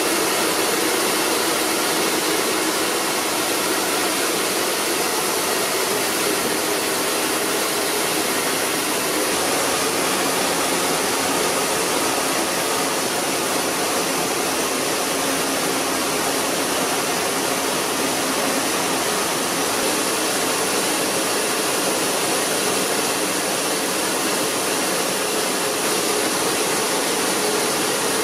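Rice mill machinery running: a steady, even rushing noise with a faint hum under it and no distinct beat.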